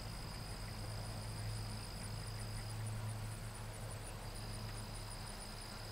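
Insects chirping in the background: an even high pulsing, about five pulses a second, with a steady high whine, over a low steady hum.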